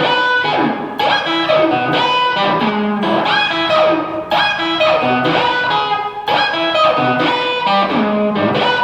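Electric guitar through an amp playing a repeating riff that mixes fretted notes with ringing open strings, the figure coming round about once a second. The whammy bar bends the notes up and down in pitch, giving a back-and-forth swooping effect.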